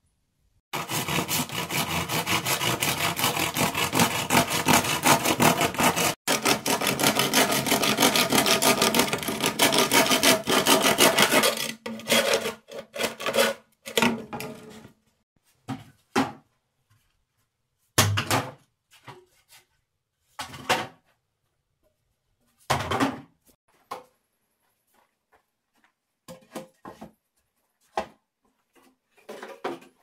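Wood being worked by hand with a tool in rapid, continuous rubbing strokes for about ten seconds. The strokes then stop, and a scatter of separate short scrapes and knocks follows.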